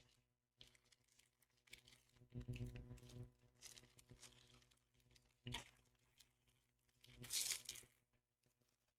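Foil booster-pack wrapper being torn open and crinkled, with cards handled: a string of short rustles and crackles, the longest crinkle about seven seconds in.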